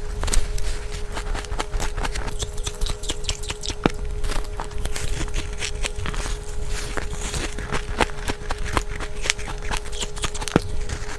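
Close-up crunching of humidifier ice being bitten and chewed: a continuous run of sharp, crisp cracks and crunches.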